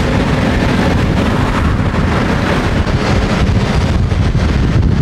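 Wind buffeting the microphone over the steady noise of a moving vehicle on the road.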